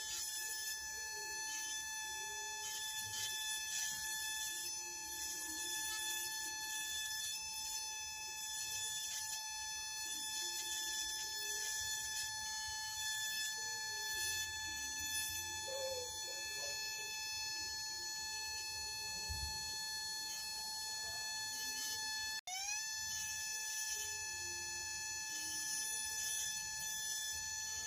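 Steady high-pitched whine of a small electric motor running at constant speed; it cuts out for an instant about 22 seconds in and rises back up to speed.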